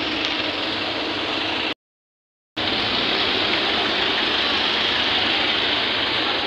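Steady hiss and rumble of busy street traffic, with vehicle engines running in a jam. The sound cuts out to dead silence for almost a second about two seconds in, then returns just as steady.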